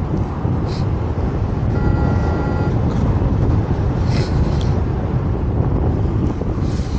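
Steady wind noise rushing over the microphone in flight, a loud, even rumble. A short faint tone sounds briefly about two seconds in.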